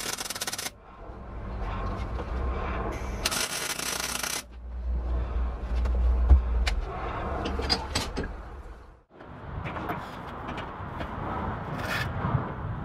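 Two short bursts of MIG welding arc crackle and hiss on steel bicycle tubing, one at the very start and another about three and a half seconds in. Between and after them come rubbing, scraping and handling noises from working on the frame.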